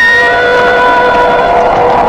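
Horror sound effect: several steady tones held together like an eerie chord, with some of them changing about one and a half seconds in.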